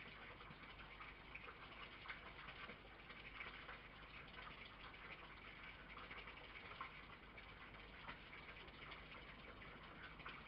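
Near silence: a steady faint hiss with scattered faint ticks and a low hum underneath.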